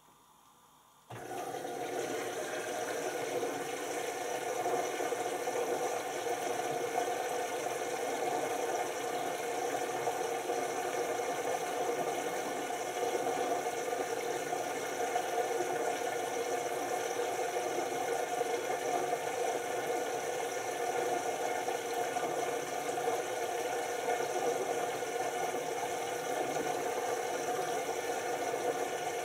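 LG TurboWash 6 Motion front-loading washing machine in its first rinse: the direct-drive motor turns the drum steadily, with wet laundry tumbling inside. The sound comes in about a second in and then holds level.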